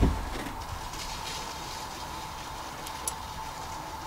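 A dull, deep bump right at the start as the camera is moved inside the blind, then a low steady background rumble with a faint thin steady whine. One small click about three seconds in.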